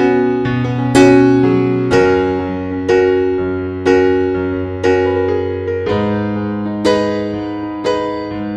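Background music: a slow piano melody, with a new chord struck about once a second and left to ring.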